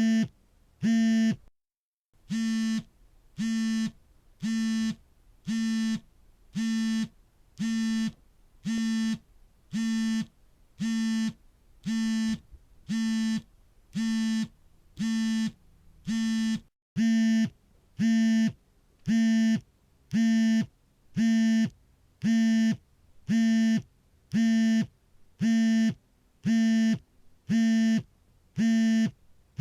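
Smartphone vibration motor buzzing for an incoming call in short pulses, about one a second, each a pitched buzz of about half a second. The pulses get louder after a brief break about two-thirds of the way in.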